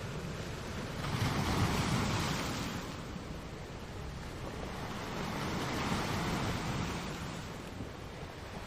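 Sea waves washing, with wind, swelling twice in slow surges.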